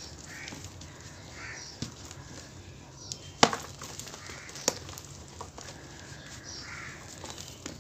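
Wet cement and baking soda chunks crumbled by hand and falling into a pan of water: soft gritty crumbling and dripping, with a sharp knock about three and a half seconds in and a smaller one about a second later.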